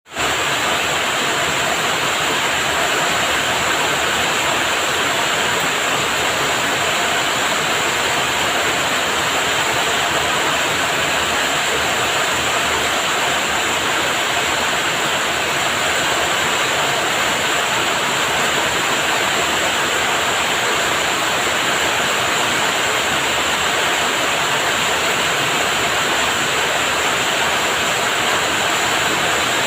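Heavy rain pouring steadily, a dense, even hiss of falling water with no let-up.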